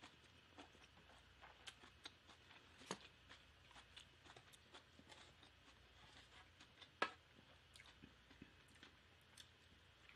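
Faint close-miked chewing and wet mouth clicks of someone eating, with a louder single click about seven seconds in.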